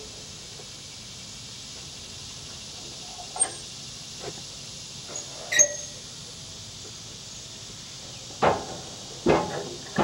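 Sawn lumber and the steel log stops and clamp of a Wood-Mizer LT15 sawmill bed being handled: a few light metal clicks, one with a short ring about halfway, then two heavy wooden knocks near the end as a board is stood on edge on the bed, over a steady high hiss.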